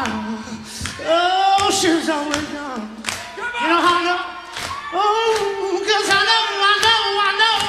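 Live band performance: a voice sings long, wavering, wordless notes over a slow, even beat of sharp drum hits.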